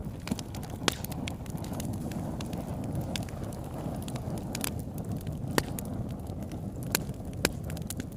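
Fire burning: a steady low rumble with irregular sharp crackles and pops, a few of them much louder than the rest.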